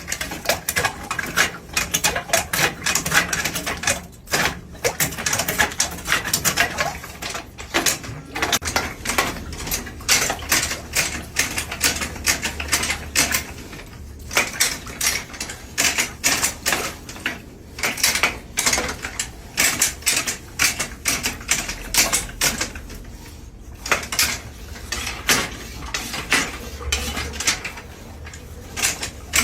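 Rapid, irregular clicking and clattering of hard objects knocking together, several strikes a second.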